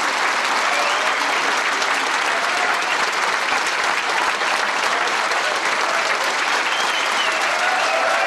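A crowd applauding, with steady, dense clapping that does not let up.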